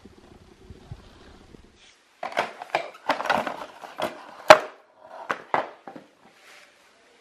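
Saddle being pulled out of its cardboard box and packaging insert: irregular rustling, scraping and clicking of card, with a sharp knock about four and a half seconds in and a few more clicks after.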